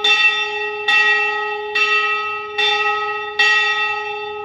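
A hanging Hindu temple bell struck repeatedly, five strokes a little over a second apart. Each stroke rings one clear note with higher overtones that hum on and fade slowly, and the last stroke rings out toward the end.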